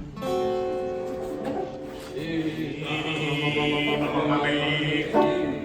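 Male voices holding long, steady notes together in a chanted, drone-like chord; a second, lower held note joins about two seconds in, and a sharp attack comes just before the end.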